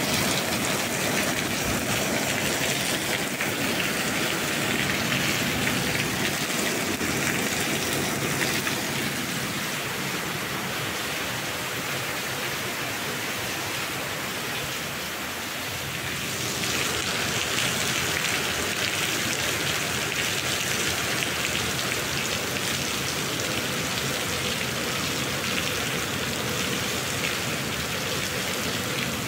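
Steady rain, easing off for several seconds in the middle and then picking up again.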